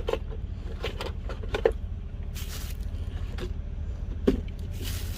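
Steady low car rumble heard inside the cabin, with a few clicks and knocks and a short hiss; one knock about four seconds in is the loudest.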